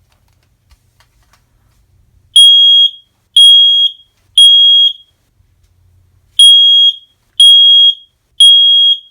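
Kidde smoke alarm sounding on test, with loud, high, piercing beeps. It gives three beeps, pauses, then gives three more: the temporal-three evacuation pattern.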